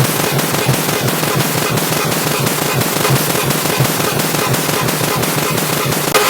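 A car horn beep sound stacked many times over on itself, turned into a loud, dense, distorted crackle with a rapid stutter of pops. It gets louder just before the end.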